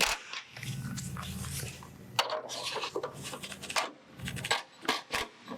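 Hand tools clinking and scraping on metal while threaded studs are tightened under the car: irregular sharp clicks over a low steady hum.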